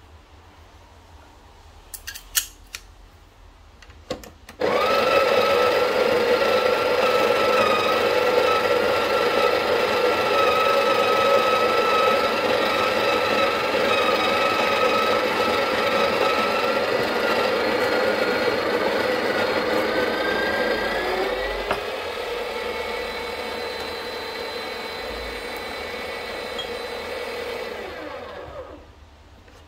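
Breville Barista Pro espresso machine's vibratory pump pushing water through the locked-in portafilter. It is a loud, steady pitched hum that starts suddenly, shifts up in pitch about two-thirds of the way through, and winds down near the end. A few metal clicks of the portafilter being fitted come just before it starts.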